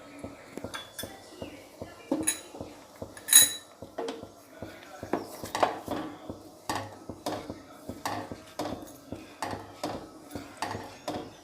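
A metal spoon stirring tomato puree in a cooking pot, knocking and scraping against the pot in irregular clinks, a few of them louder than the rest.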